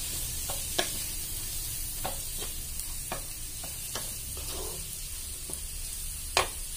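Onions, tomato and ground spices sizzling in oil in a non-stick pan, stirred with a wooden spatula that scrapes and knocks against the pan every second or so. The sharpest knock comes near the end.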